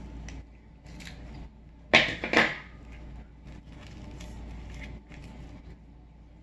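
A black rubber balloon filled with slime being cut with scissors and peeled open by hand: quiet rubbing and crinkling handling sounds, with two loud sudden noises close together about two seconds in.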